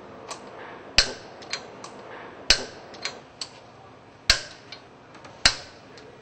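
Sharp metallic clicks of a torque wrench tightening the bolts that join a Grundfos 300S submersible pump end to its motor: four loud clicks about a second and a half apart, with fainter ticks between them.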